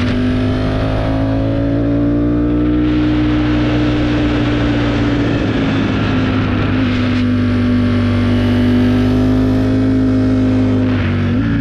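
Motorcycle engine running under way at a steady cruise, its note rising a little early on and then holding, with a brief break in the note near the end.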